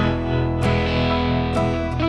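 Background music led by guitar: a sustained chord with a few plucked or strummed notes.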